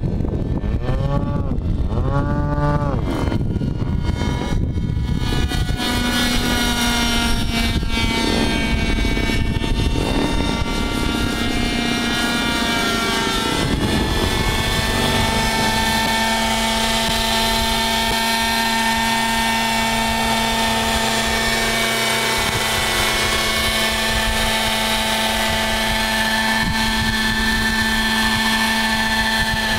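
Radio-controlled model helicopter flying: its engine and rotor sweep up and down in pitch as it passes in the first few seconds, then about halfway through it settles into a steady drone as it hovers.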